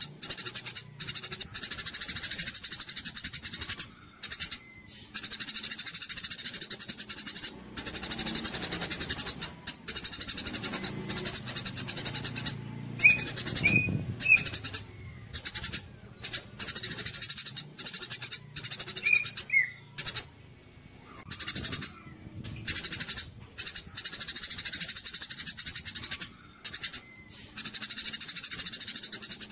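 Eurasian tree sparrow (burung gereja) singing the 'cililin kapas tembak' style of song: long runs of rapid, high-pitched chattering broken by short pauses, with a few brief whistled notes near the middle.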